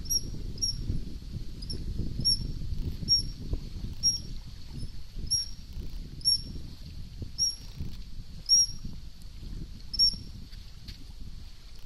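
Eurasian otter giving short, high-pitched squeaking whistles, about a dozen in a row at roughly one a second, stopping about ten seconds in, over a low rumble.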